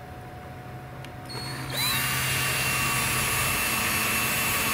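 Cordless drill driving a screw into a wooden board. The motor spins up about two seconds in, its whine rising quickly, then runs steadily under load.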